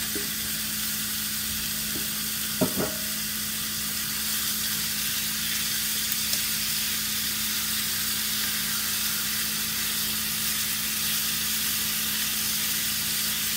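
Raw chicken pieces sizzling in hot oil with sautéed bell peppers and onions in a frying pan, stirred with a silicone spatula: a steady frying hiss, with one sharp knock about two and a half seconds in and a low steady hum underneath.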